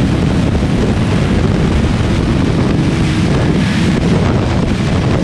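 Heavy wind noise buffeting the microphone at riding speed, over the steady running of a Honda CBR250R's single-cylinder engine.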